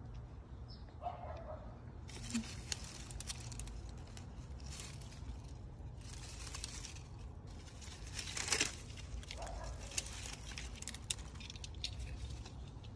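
Rustling and crinkling of grapevine leaves and fine mesh netting being handled and pushed aside, in irregular bursts with small clicks and snaps; the loudest burst comes about eight and a half seconds in.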